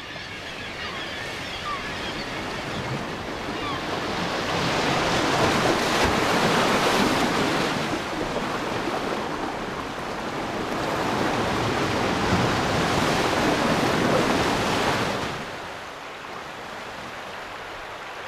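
Ocean surf: waves rushing in and breaking as a broad rush of water that swells twice, then drops to a lower steady wash about fifteen seconds in.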